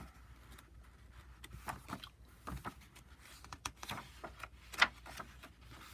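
Soft paper rustles and light taps as the pages of a paper notebook are smoothed flat and turned, with one sharper rustle near the end.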